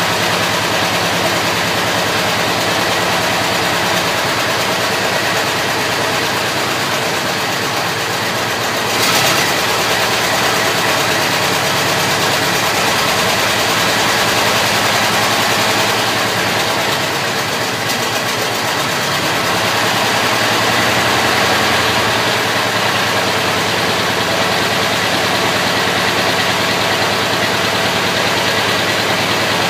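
Ford Model T four-cylinder engine running steadily at idle on its first start-up after being built, with a short knock about nine seconds in.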